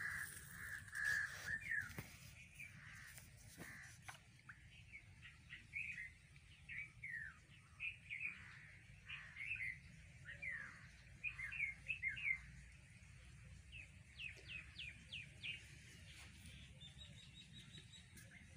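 Small birds chirping: a running series of short, quick, falling chirps, with a held whistle-like note in the first second or so.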